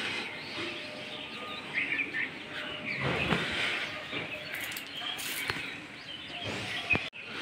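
Small birds chirping now and then over a steady outdoor background noise.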